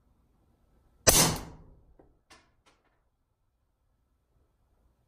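Single shot from a Beretta 21A .22 LR pistol fitted with a Gemtech Alpine suppressor, about a second in: one sharp crack with a short decaying tail, followed by a few faint light ticks.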